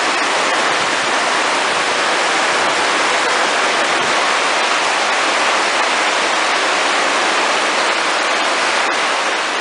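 Heavy downpour falling steadily on a corrugated metal roof, with runoff pouring off the roof edge in streams.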